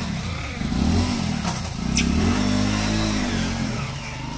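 A vehicle engine, motorcycle-like, revving up and falling back several times. There is a sharp click about two seconds in.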